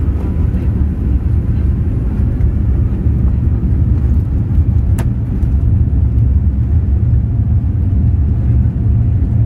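Steady low rumble of engine and airframe noise inside the cabin of a Boeing 787-8 on the move, with one sharp click about halfway through.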